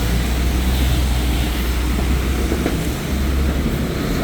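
A heavy vehicle's engine running close by, a steady low rumble that dips briefly about three seconds in. Under it is an even hiss of traffic on a wet street.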